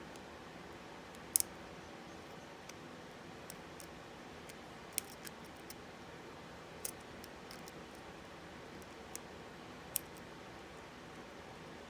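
Small, irregular metallic clicks and ticks of a lock pick and tension wrench working in the keyway of an Abus 64TI 30 mm padlock, over a steady low hiss. A handful of the clicks are sharper, the loudest near the end.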